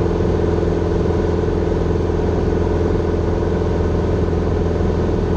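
Grumman Tiger's four-cylinder Lycoming O-360 engine and propeller droning steadily in flight, heard from inside the cabin.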